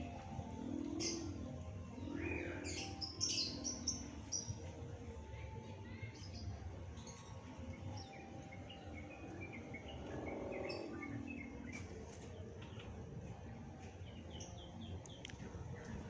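The bamboo hummer (sawangan) of a 2.5-metre Madurese kite droning in the wind, a low snoring hum that swells and fades. Birds chirp over it.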